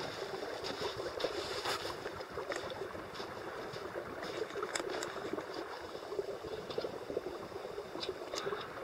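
A small stream running steadily.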